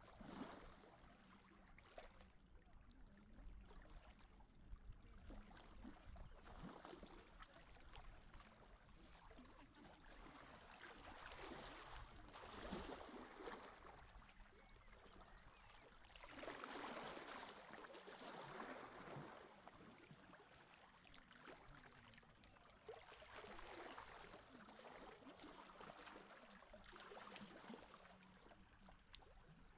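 Faint, gentle lapping of calm sea water, washing in and fading away every few seconds.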